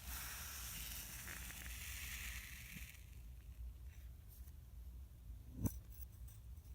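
Kinetic sand being cut and scraped with a tool: a soft grainy hiss for about three seconds that then stops, followed by a few faint ticks and one sharp tap near the end.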